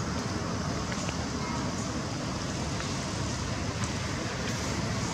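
Steady outdoor background noise: a low rumble with an even hiss above it, and a few faint ticks.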